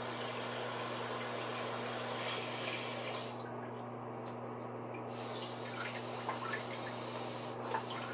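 Water running and spraying steadily from a Brondell non-electric bidet seat's wash nozzle, easing off a little about three seconds in.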